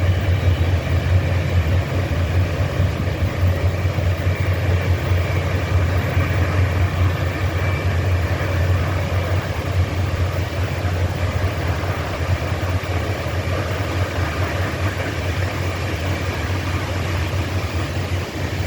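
Loaded coal train's hopper cars rolling past, a steady low rumble of wheels on rail.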